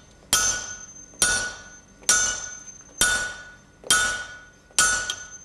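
Sledgehammer striking a handled hot punch held on a hot steel bar on the anvil: six evenly spaced blows, a little under one a second, each a sharp metallic strike that rings briefly. The punch is being driven into the hot steel to punch a hole.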